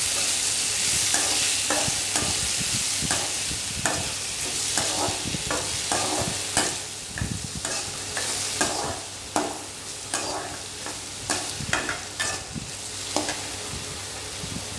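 Snake gourd pieces sizzling in hot oil in a metal kadai while a slotted steel spatula stirs and scrapes the pan in repeated irregular strokes. The sizzle fades gradually as the vegetable is sautéed.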